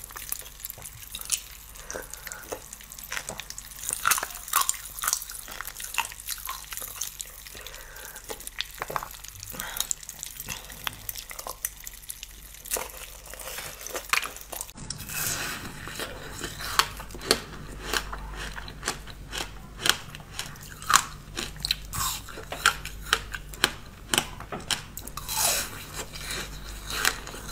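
Close-miked biting and chewing of frozen jelly, with many sharp icy crunches between softer chewing. About fifteen seconds in, the sound changes to a different frozen food being bitten and crunched.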